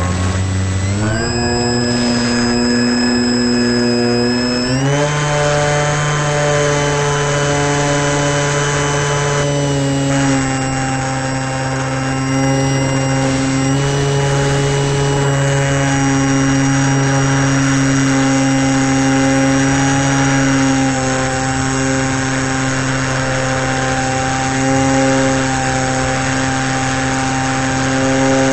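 Electric motor and propeller of a model airplane running in flight: a steady whine that steps up in pitch about a second in and again about five seconds in as the throttle is opened, then holds nearly steady with small changes.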